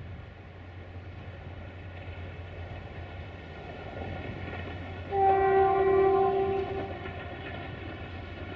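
Locomotive horn sounding one blast of about a second and a half, two notes together, with a low steady rumble from the approaching train underneath.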